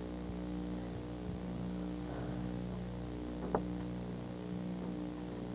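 Steady electrical hum with its overtones on an old videotape soundtrack, and a brief faint blip about three and a half seconds in.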